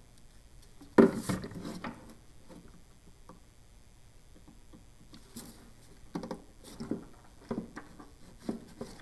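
Plastic washer fluid reservoir being handled and fitted into a car's engine bay: a loud knock and scrape about a second in, then a string of softer plastic knocks and rustles as it is worked into place.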